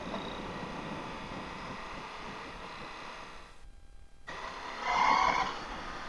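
Riding noise from a Ducati Multistrada V4S under way at moderate speed: steady wind rush over the faint running of its V4 engine. The sound briefly dips out about two-thirds of the way through, then a short louder sound comes near the end.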